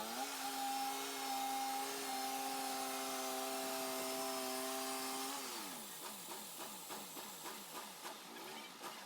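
Turner Mills portable bandsaw mill running with a steady hum, which slides down in pitch about five seconds in as the machine winds down. A fainter rhythmic ticking, about two beats a second, follows.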